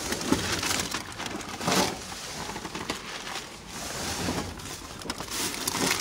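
Plastic bags and packaging rustling and crinkling as gloved hands pick through and move items, with louder rustles about two seconds in and near the end.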